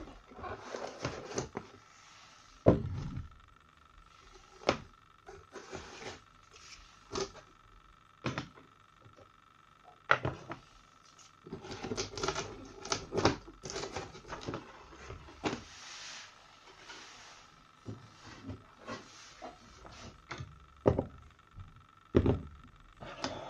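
Unboxing handling noise: a cardboard box and its cardboard insert rustling and scraping, with irregular knocks and clicks as a plastic irrigation controller, its wires, a plastic valve and accessories are lifted out and set down on a cutting mat. The sharpest knocks come about three seconds in and near the end.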